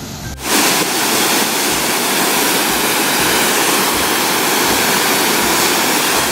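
Loud, steady roar of a large waterfall heard close up, the Ouzoud falls crashing down with no break, cutting in sharply about half a second in.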